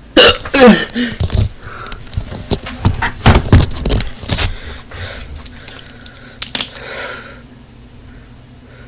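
A person hiccupping near the start, followed by a quick irregular run of sharp clicks and knocks that dies away after about four seconds into quieter room tone.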